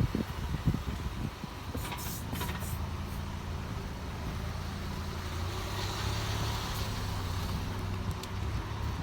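Skoda Yeti on the move with a steady low hum, and a few short sharp creaks from the suspension about two seconds in.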